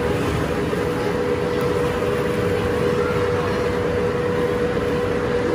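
A steady mechanical drone with a constant tone, holding level throughout, typical of a large machine such as ventilation or a blower running.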